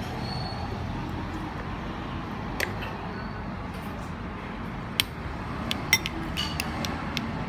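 A metal spoon clinking against a ceramic soup bowl and a small condiment dish as it scoops calamansi and chili and stirs the soup: a few scattered light clinks, the sharpest two about five and six seconds in, over steady background noise.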